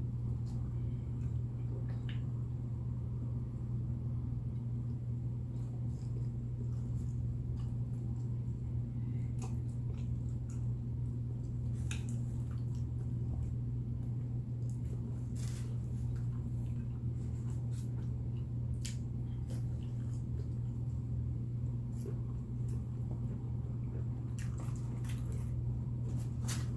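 Someone eating chicken wings, with soft scattered chewing smacks and mouth clicks over a steady low hum.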